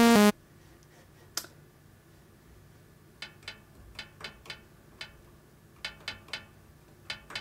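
A brief loud buzzy synth note from Serum's saw-wave oscillator stops about a third of a second in. It is followed by a single ping, then about a dozen short metallic pings with ringing overtones at uneven intervals, from Serum's noise oscillator playing the 'Waterphone 01' sample on each key press.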